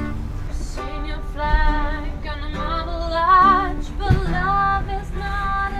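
A woman singing a melody with wavering vibrato on held notes, over accompanying music.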